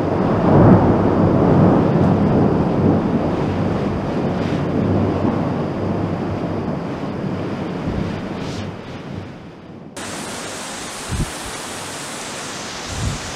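Rolling thunder rumbling for several seconds and slowly fading, over a steady hiss of heavy rain. About ten seconds in, the sound switches abruptly to a brighter, even rain hiss with two short low thumps.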